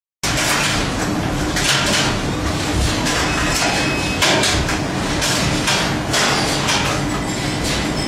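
Factory workshop din: irregular knocks and clatter of cables and metal parts being handled on steel workbenches over a faint steady machine hum.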